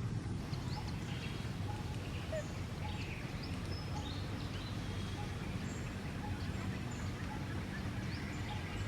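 Outdoor ambience: a steady low rumble with many short, scattered high chirps and squeaks from small animals or birds.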